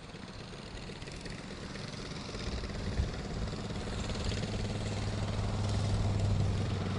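Several go-kart engines running at low speed as the field circles the dirt oval under the yellow flag, growing steadily louder as the karts come nearer, with one steady low engine hum standing out in the second half.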